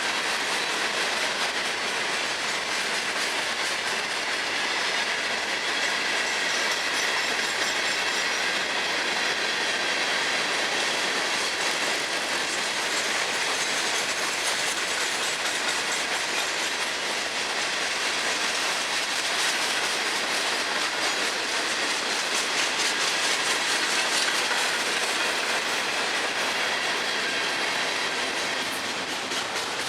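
Florida East Coast Railway freight cars rolling past, their steel wheels clattering steadily over the rail joints.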